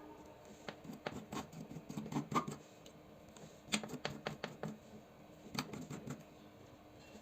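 Light clicks and taps of small hard plastic parts and tools being handled on an opened PS4 controller, in three short clusters of quick clicks.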